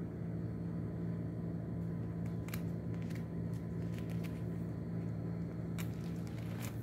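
A steady low hum, with a few sharp paper clicks and crinkles as the stiff pages of a stamp album are handled; a page is turned near the end.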